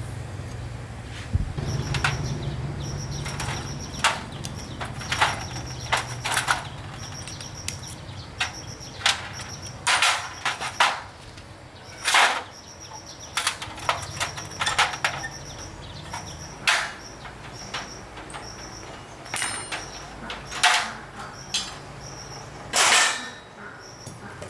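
Irregular sharp knocks and clacks, like tools and parts being handled during engine repair work, about twenty over the span. A low hum fades out in the first several seconds, and a faint high-pitched chirp repeats on and off.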